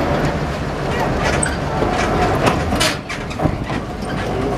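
A WWII-era DUKW amphibious truck's engine and drivetrain running steadily as it drives along a road, heard from its open passenger deck. There is a steady low rumble with a few sharp rattles from the body about halfway through.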